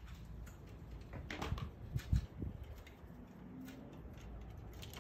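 Young racing pigeons at the loft, heard faintly, with scattered soft knocks and rustles.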